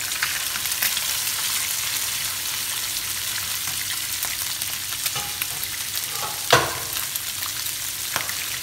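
Pomfret pieces sizzling in hot oil in a frying pan, a steady hiss with scattered small pops, and one sharp tap about six and a half seconds in.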